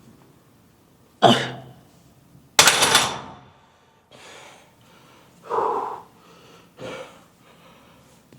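A man's forceful exhales and grunts while straining through shoulder press reps: two loud, sharp ones in the first three seconds, then three softer ones, the fourth with some voice in it.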